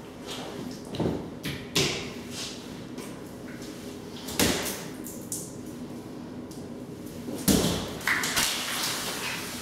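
A few irregular knocks and thuds, the loudest about halfway through and near the end, over a steady low hum.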